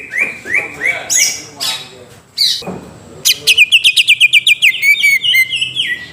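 Cucak ijo (greater green leafbird) singing: a string of short, downward-sliding whistled notes, then from about halfway a fast run of loud, sharp notes, several a second.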